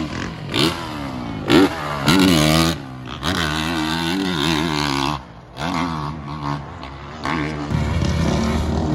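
Motocross dirt bike engines revving hard as the bikes are ridden over dirt jumps, the pitch repeatedly climbing and dropping with the throttle. The sound dips briefly a little past the middle.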